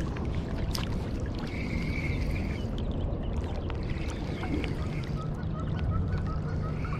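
Steady rush and lapping of river current around a wading angler's legs as he reels in a spinning reel, with a faint regular ticking in the second half.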